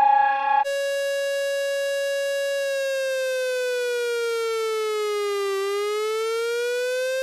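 Electronic emergency alert alarm tone. A falling tone ends just over half a second in, then a single buzzy tone holds, sinks slowly in pitch, climbs back up near the end and cuts off.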